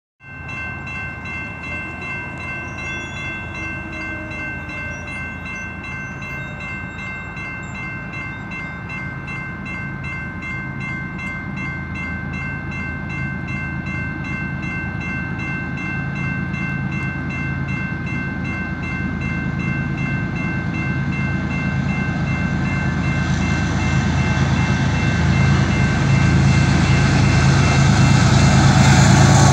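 Grade-crossing warning bell ringing steadily and rapidly while an approaching BNSF freight train's diesel locomotives grow louder. Their engine rumble and wheel noise rise sharply over the last several seconds as the lead units reach the crossing.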